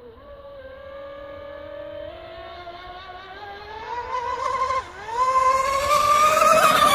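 HPR 135 electric RC racing catamaran's brushless motor (TP 5840, 1150 KV, on 10S) and propeller running at speed: a high whine that climbs steadily in pitch and grows louder as the boat nears. The pitch dips briefly about five seconds in, then rises again, with a growing hiss of spray near the end.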